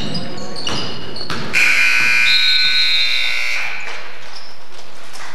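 Gym scoreboard buzzer giving one long, steady blare of about two seconds, starting about a second and a half in. It follows a few basketball bounces on the hardwood floor.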